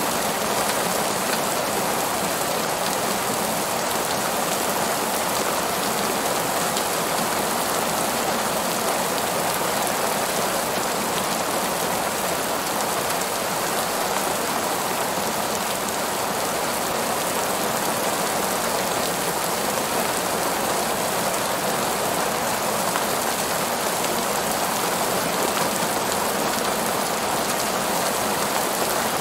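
Heavy rain falling steadily on a parking lot, an even hiss of drops that does not let up.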